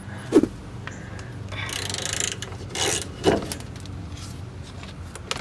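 Ratchet wrench clicking as it turns out the bolts holding a drum-brake wheel cylinder to the backing plate, with a couple of sharper knocks.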